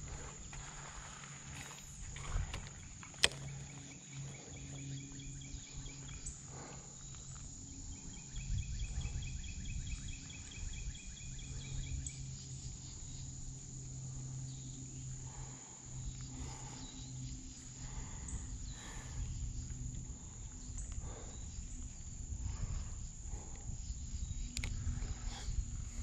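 Insects trilling in rapid pulses over a steady high drone, with a low rumbling noise underneath and a single sharp click about three seconds in.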